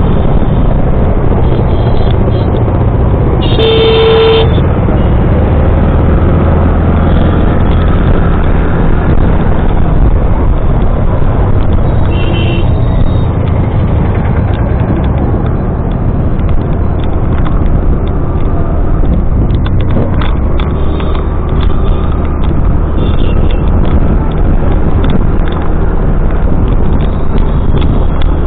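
Motorcycle engine running steadily on the move, with road and traffic noise. A vehicle horn honks once for about a second near the start, and a shorter, fainter honk comes about twelve seconds in.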